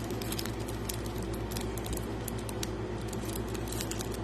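Small clicks and light rustling as a packet of small gemstones is handled, the stones tapping together, over a steady low hum.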